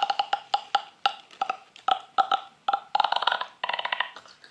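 A woman's drawn-out creaky vocal sound: a string of irregular clicking pulses that thins out near the end.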